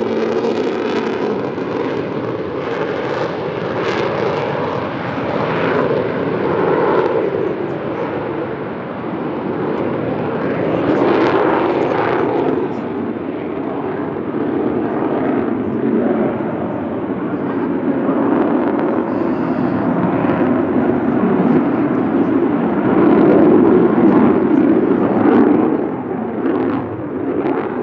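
Jet noise from an F-35A Lightning II's single Pratt & Whitney F135 turbofan as the fighter flies a display overhead, its afterburner lit. It is a continuous, rough rumble that swells and eases as the jet passes and turns, loudest near the end.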